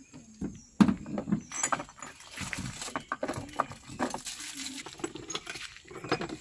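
Handling clatter: a series of clicks and knocks as plastic equipment cases are opened and set down, with small glass medicine bottles and metal gear rattling. The loudest knock comes just under a second in.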